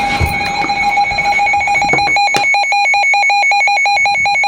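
Weather alert radio sounding its alarm for an incoming special marine warning: a steady tone that breaks into rapid, even beeping, several a second, about a second and a half in.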